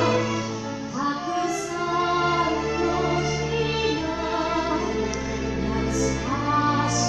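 A female vocalist singing into a microphone over a live string orchestra with cellos and violins, in long held notes. The chords change about a second in, again around four seconds, and near the end.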